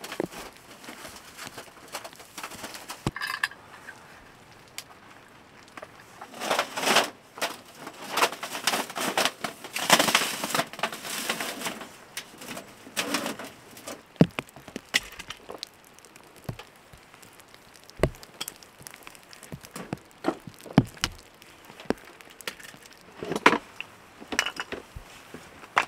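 Short split firewood blocks knocking and clattering against each other as they are handled and set down, a string of separate sharp wooden knocks, with a busier stretch of rustling and scraping before them.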